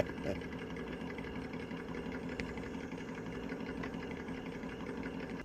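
Electric motor and gear drivetrain of an RC rock crawler whining steadily as it creeps along at low throttle, cutting off suddenly near the end.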